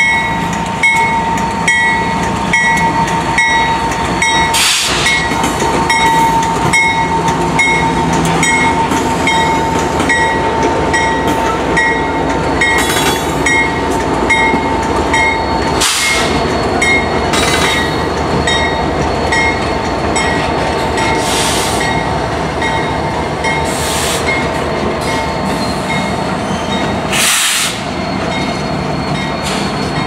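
Kansas City Southern diesel locomotives running past close by, pulling a double-stack container train: a heavy continuous rumble with a bell ringing steadily about one and a half times a second, and a few short sharp clanks along the way.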